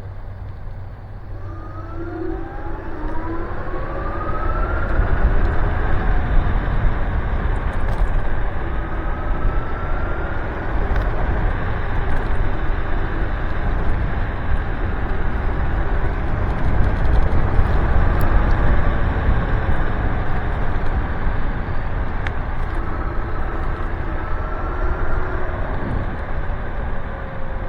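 Nanrobot Lightning 2.0 electric scooter being ridden: its dual 800-watt motors whine and rise in pitch as it speeds up near the start, again around ten seconds in and past twenty seconds. Underneath is a steady low rumble of the solid tyres and wind.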